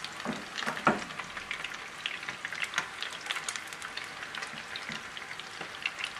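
Bone-in chicken drumsticks coated for karaage shallow-frying in a little oil in a frying pan: a steady sizzle full of small crackling pops. A few sharper clicks, the strongest about a second in, come as tongs shift the pieces.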